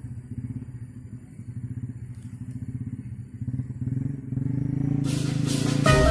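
A small engine running with a fast, even putter that grows louder. Background music comes in near the end.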